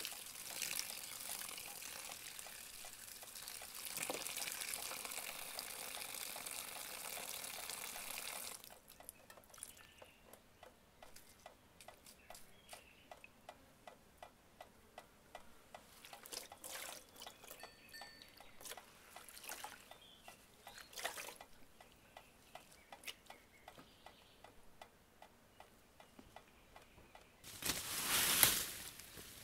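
Water running from an outdoor tap for about eight seconds, then faint, evenly spaced ticks. Near the end comes a louder rustling of leaves and branches in the bushes.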